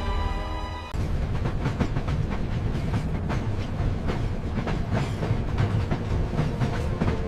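Train running on rails: a steady low rumble with the wheels clacking irregularly over the track, starting about a second in after a held musical chord breaks off.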